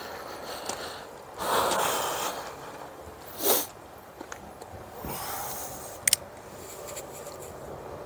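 A man breathing close to a clip-on microphone: a long exhale about a second and a half in, then a short, sharp sniff about halfway through. Two quick clicks follow about six seconds in.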